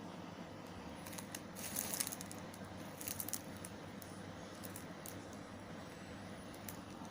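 Faint handling noises of plastic packaging: scattered crinkles and small clicks, clustered about a second in and again around three seconds, over a steady low hum.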